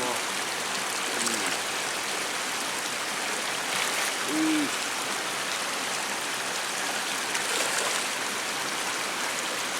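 Steady rush of flowing stream water, with a short voice sound about four seconds in.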